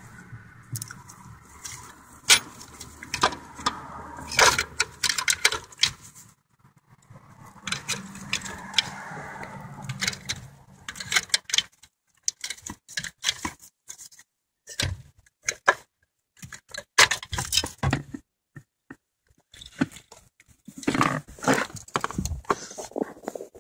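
Steel clutch pedal bracket and hand tools clinking and rattling as the bracket is worked loose and pulled out of a car's footwell: irregular sharp metal clicks and knocks, over a low steady hum during the first half.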